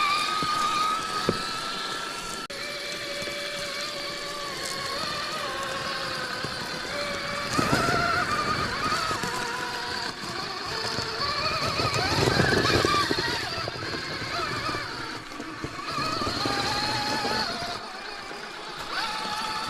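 Axial SCX6 Honcho RC crawler's motor and geared drivetrain whining as it crawls over rock, the whine rising and falling in pitch with the throttle. Louder grinding surges come about eight and twelve seconds in.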